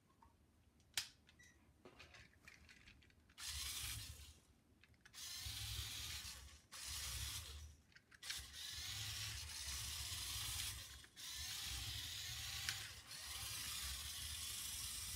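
Lego Technic remote-control car's electric motors whirring through their plastic gears as the car is driven, in six runs of one to three seconds with short breaks, starting about three seconds in. A single click about a second in.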